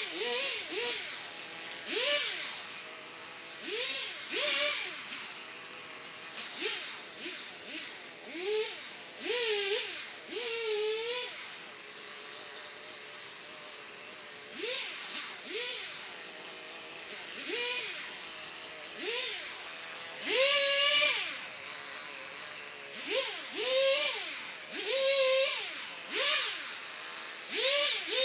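Power saw cutting saplings, its motor spun up in about twenty short bursts of a second or less. Each burst rises quickly in pitch and drops away, with quiet gaps between.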